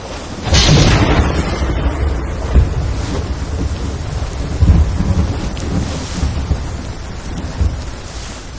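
Rain falling steadily with low rolls of thunder, the loudest swell about half a second in.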